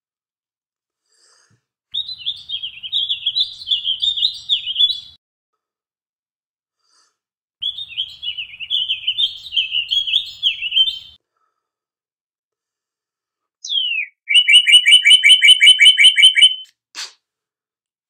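Acorn cap whistle blown between the thumbs: three loud, shrill, warbling blasts, the last starting with a short downward glide and breaking into a fast trill. A short click near the end.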